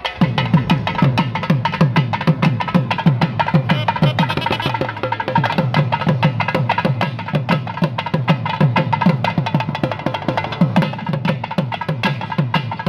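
Two thavil drums playing a fast percussion passage without melody: dense, rapid, sharp strokes from the stick and the fingers on the drumheads.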